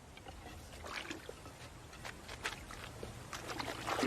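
Water splashing and dripping in small, irregular splashes over a faint watery background, with a louder splash just before the end.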